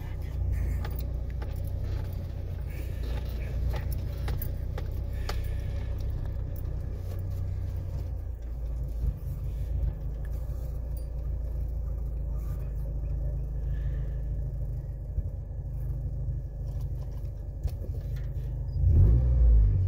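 Ford Ranger's 2.3 L four-cylinder engine running through a Thrush glasspack muffler, heard from inside the cab as a steady low drone, with keys jangling on the ignition. The engine note drops about eight seconds in and swells louder near the end.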